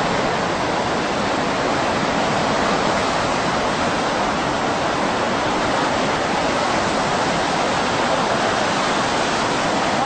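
Rough, heavy sea: a steady rushing noise of surf, with no separate wave crashes standing out.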